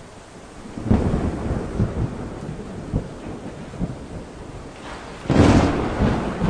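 Thunder: a rumble that builds about a second in, broken by several sharp cracks, with the loudest crash near the end.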